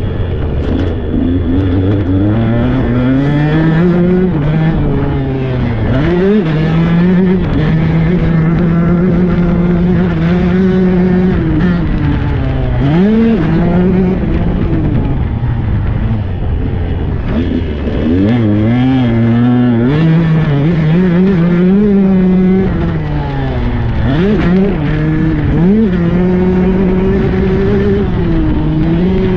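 Husqvarna 125 cc dirt bike engine ridden hard, the engine note climbing under throttle and dropping off several times, with quick drops and blips between the long pulls.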